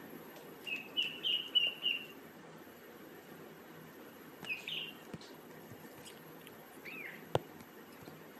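High-pitched chirping calls: a quick run of five about a second in, another pair near the middle and a single arching call later, over a faint steady hiss. A sharp click sounds near the end.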